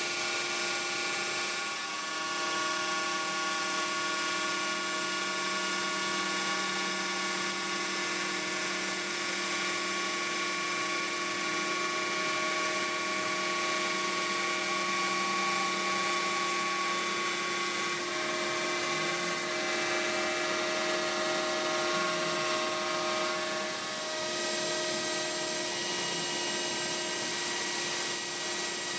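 CNC router spindle running at high speed, its bit cutting into a cedar board to clear the background around the lettering, with the dust collector drawing through the hose. A steady high whine with several held tones over a dense hiss; the tones shift a little about two-thirds of the way through as the cut changes direction.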